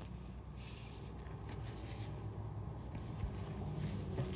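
Faint, short scrapes and rustles of PVC pipe and flexible corrugated tubing being handled in a dirt trench, over a low steady hum.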